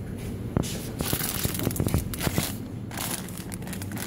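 Close rustling and crinkling, like plastic or clothing being handled near the microphone, with scattered small clicks; it is densest from about one to two and a half seconds in.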